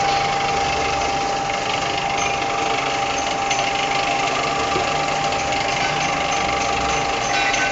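Motor-driven plastic cup ring-cutting machine running with a steady mechanical whir and an even pitch.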